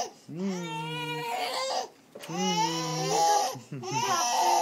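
A teething six-month-old baby crying and fussing: three long cries, each about a second, with short breaks between them.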